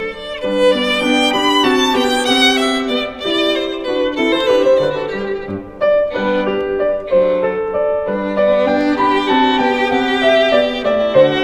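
Background music led by a violin playing a melody with vibrato over a lower accompaniment.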